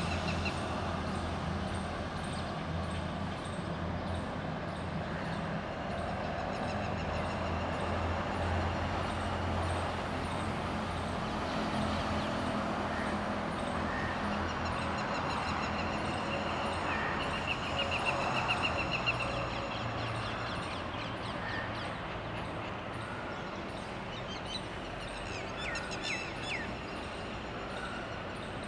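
Outdoor ambience: a steady low engine hum with scattered bird calls over it. A high chirp repeats steadily throughout, a louder trilling call comes about two-thirds of the way in, and a few quick sweeping calls come near the end.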